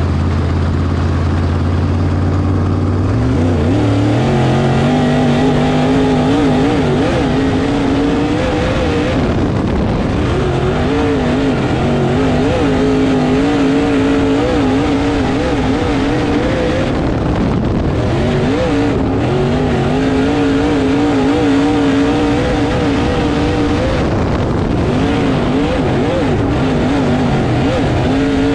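Dirt-track modified race car engine running hard. It holds a low steady note at first, climbs in pitch about three seconds in, and then keeps rising and falling, dipping briefly a few times.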